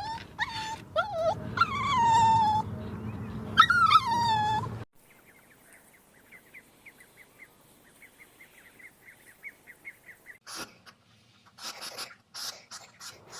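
An animal whining: loud, high-pitched calls that slide down in pitch, repeated for about five seconds. They give way to a faint, rapid run of short chirps, then scattered clicks near the end.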